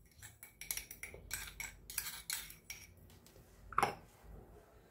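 A spoon clinking and scraping against small ceramic ramekins as sugar is mixed into bread yeast: a quick run of light clinks, then one louder clink nearly four seconds in.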